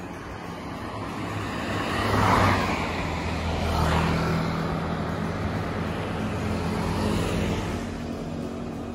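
Road traffic passing: vehicles go by in swells of engine and tyre noise, the loudest about two seconds in, another about four seconds in as a motor scooter passes close, and a third near seven seconds.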